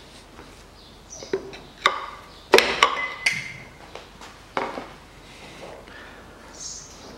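A handful of sharp metallic clinks and knocks, several ringing briefly, mostly bunched in the middle: a Mitsubishi 4B10 engine's steel connecting-rod cap and bearing shell being taken off the crankshaft and handled on the block.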